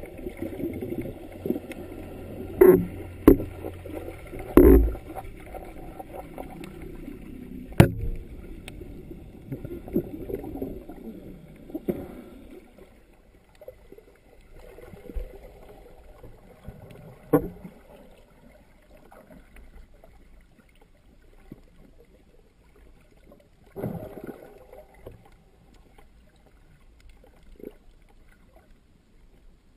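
Muffled water sloshing heard through a sealed GoPro dive housing underwater, with sharp knocks on the housing, several in the first eight seconds and a few later. The water noise grows quieter after about twelve seconds.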